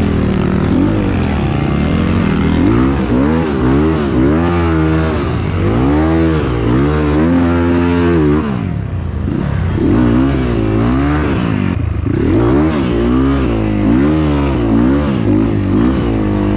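Motorcycle engine revving, its pitch rising and falling over and over about once a second, with short dips in between.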